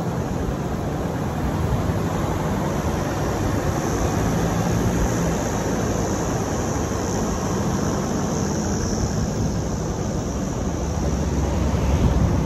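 Pickup truck driving along beach sand: a steady rumble of engine and tyres mixed with wind rushing over a microphone held outside the moving vehicle, a little louder near the end.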